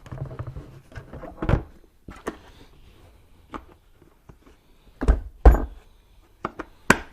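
Irregular knocks and thuds of a plastic shop vac and its parts being handled and fitted together, the loudest pair about five seconds in, with a few sharper clicks near the end.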